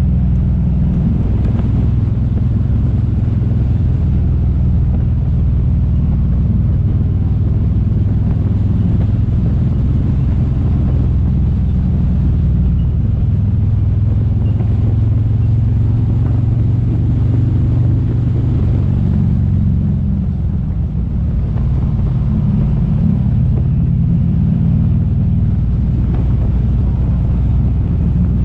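Motorcycle engine running under way on a ride, a steady low drone with road and wind noise over it. The engine note eases and dips briefly about two-thirds of the way in, then picks up again.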